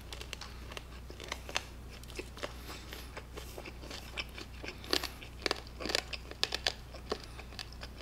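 Close-miked chewing of a lettuce wrap of grilled pork belly with raw garlic and chili pepper: irregular wet crunches and bites, busiest about five seconds in.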